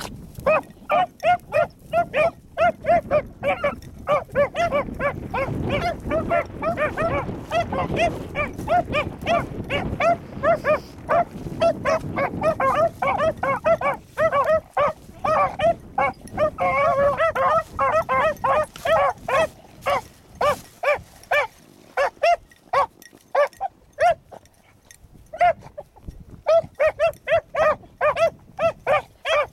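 Beagle pups baying in short, rapid, repeated calls, about two or three a second, as they run a rabbit's scent line; around the middle two dogs call over each other, and the calling thins to a few calls for several seconds before picking up again near the end. Wind rumbles on the microphone through the first half.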